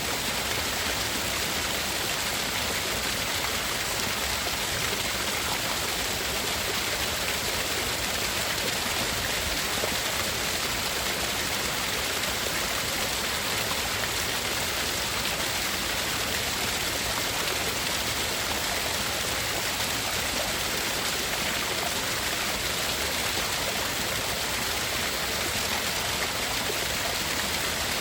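Steady, unchanging hiss-like masking noise for tinnitus relief, sounding like a rushing stream or waterfall, bright and even throughout.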